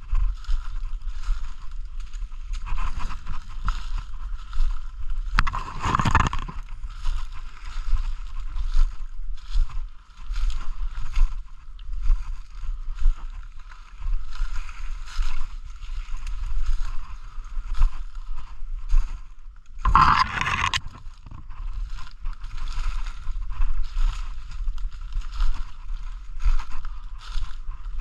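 Footsteps crunching and shuffling through dry leaf litter with rustling of brush and clothing, an uneven crackle that goes on throughout. Twice, about six seconds in and again about twenty seconds in, a louder, longer rustle surges up as the walker pushes through leaves and branches.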